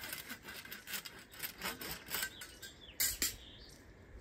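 A hand saw cutting through grey PVC electrical conduit with quick back-and-forth strokes, about three or four a second, ending with two sharper strokes about three seconds in.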